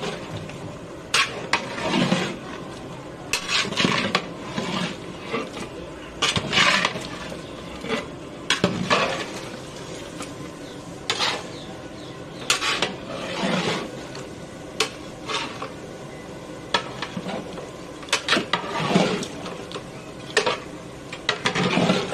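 A metal ladle stirring and scraping inside a large metal cooking pot of mutton and spices, in irregular strokes roughly every second or two, with clanks against the pot.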